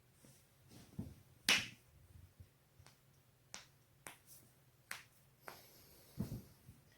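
Neck joints cracking as the neck is twisted: a string of sharp pops spread over several seconds, the loudest about a second and a half in, with a couple of duller thumps among them.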